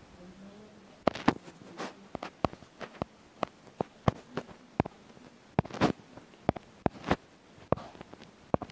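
Irregular sharp taps and clicks, two or three a second, starting about a second in: fingertips tapping and dragging on a smartphone touchscreen, heard through the phone's own microphone.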